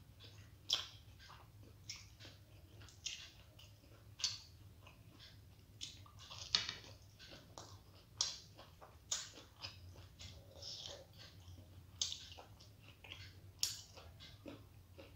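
Close-miked chewing of soft steamed vegetable momos, with wet mouth smacks and clicks at irregular moments, every second or two, over a faint steady low hum.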